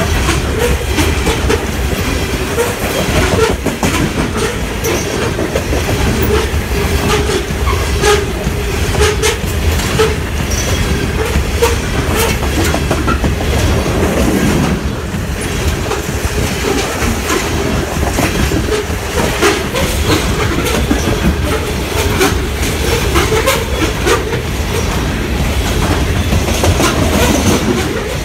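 Train passing, its railroad cars rumbling steadily with the repeated clickety-clack of wheels over rail joints and a little wheel squeal.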